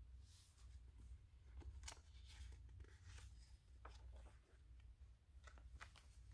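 Faint rustling and soft ticks of the pages of a large hardcover picture book being turned by hand, over a low steady room hum.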